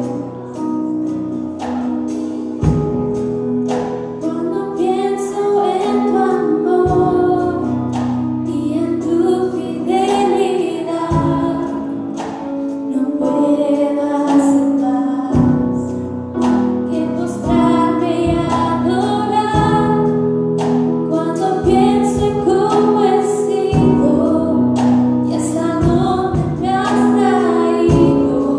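Live church worship song: a woman sings lead into a microphone with backing voices, over sustained keyboard chords, guitar and a steady beat.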